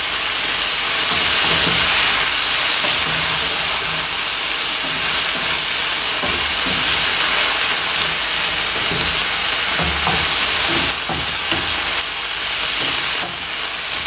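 Chicken pieces sizzling in hot oil in a nonstick frying pan with a steady hiss, stirred and turned with a wooden spatula that scrapes now and then. The chicken is frying until browned.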